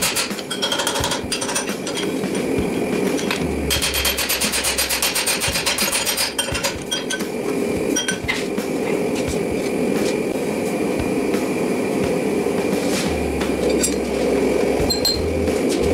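Hand hammer striking a hot railroad spike on a steel anvil: a fast, even run of blows for about three seconds a few seconds in, then scattered single clinks of tools on iron. A propane forge burner runs steadily underneath.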